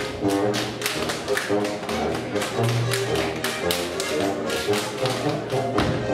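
Schuhplattler dancers' sharp slaps and claps, several a second, on thighs, shoe soles and hands, over Bavarian brass band music.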